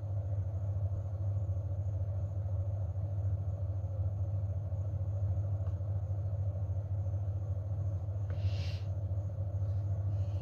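A steady low hum runs throughout, from a motor or appliance. A short, soft rustle of flour or a scoop comes about eight seconds in.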